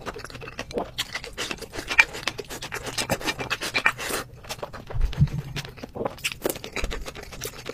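Close-miked eating of crab fried rice: a dense run of wet clicking and crackling chewing and mouth sounds as spoonfuls go in, with scraping of the spoon. There are a couple of low thuds about five and seven seconds in.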